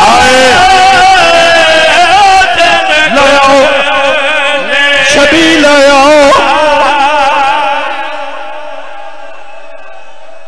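A man singing a mournful Urdu-Punjabi majlis lament (masaib) through the hall's microphone and loudspeakers. His held notes waver in pitch. The singing fades away about eight seconds in.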